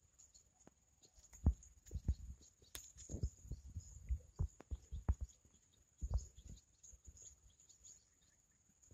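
Irregular low thumps and rumbles on the microphone at uneven intervals, with a faint steady high whine throughout.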